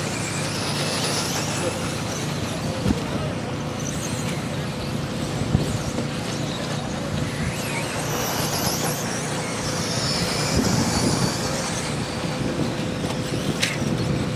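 Radio-controlled 2WD buggies racing on an off-road track: high motor whines rise and fall as the cars pass, with tyre and chassis clatter over a steady hum. A sharp click comes near the end.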